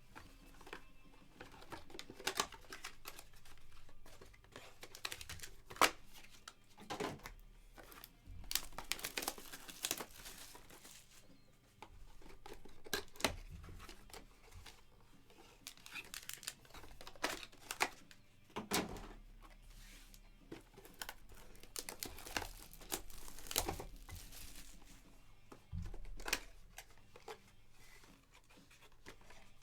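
Plastic wrappers on trading-card boxes and packs being torn open and crinkled in hand, in irregular crackling strokes with sharp snaps.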